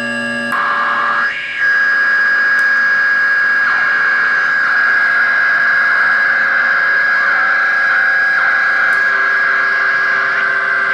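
Homemade analogue oscillator noise box giving out a harsh electronic drone: several steady buzzing tones over hiss. The pitch shifts as its knobs and switches are worked, with a quick sweep up and down about a second and a half in and new lower tones coming in near the end.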